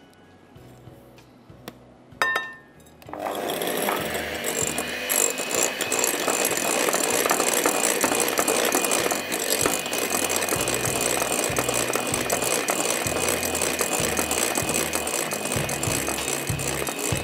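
Electric hand mixer starting about three seconds in and then running steadily with a constant high whine, its beaters whipping egg whites with powdered sugar in a glass bowl; a single clack comes just before it starts.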